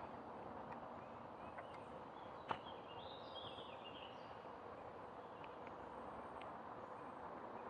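Quiet outdoor background noise, steady throughout, with a short warbling bird call about three seconds in and a single sharp click just before it.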